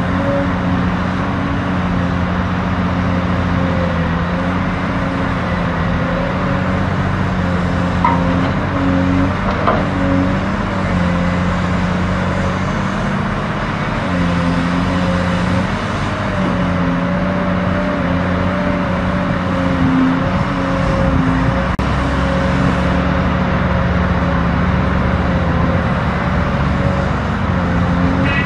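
Heavy diesel engines of an 8x8 dump truck and a motor grader running steadily, a low drone whose pitch wavers slightly as they work, with a deeper rumble coming in about two-thirds of the way through.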